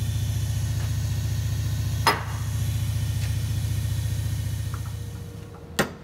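Bench grinder running steadily while the cast-iron lathe shift fork is held against its wheel to clean it. The grinder winds down about five seconds in, and a sharp hammer blow lands near the end as the fork's bronze bushing is being knocked out.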